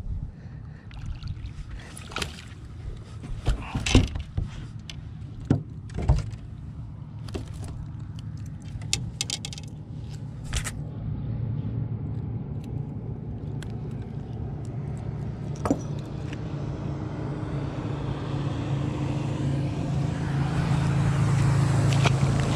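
Clicks and knocks of a largemouth bass being unhooked from a chatterbait on a boat deck, with the lure and rods rattling. From about halfway a steady low motor hum comes in and slowly grows louder.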